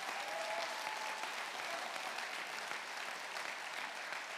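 Congregation applauding steadily, easing slightly near the end.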